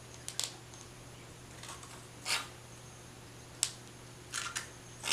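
Plastic glitter glue tube being squeezed out into a bowl: a few scattered small clicks and a short hiss about two seconds in, over a low steady hum.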